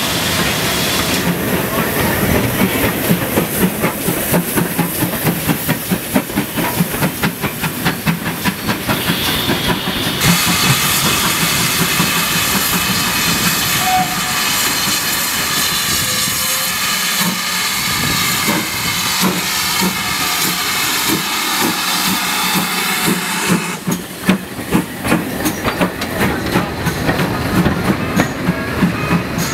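Steam locomotives working past at close range: first a Great Western tank engine, then GWR Manor-class 4-6-0 No. 7820 Dinmore Manor. Exhaust beats come in a quick rhythm, with a stretch of loud steam hiss in the middle and rhythmic clatter again near the end.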